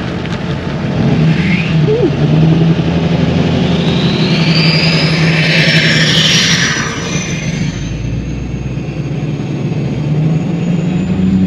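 Lifted Duramax turbo-diesel pickup trucks accelerating, a steady engine drone under a high turbo whistle that climbs in pitch through the second half.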